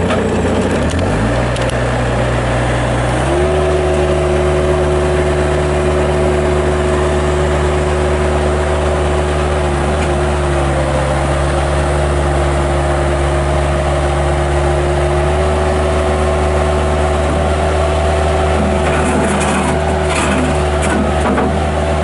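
Bobcat 763 skid steer loader's Kubota diesel engine running, speeding up in two steps in the first few seconds and then holding a steady raised speed, with a steady whine over it as the loader drives.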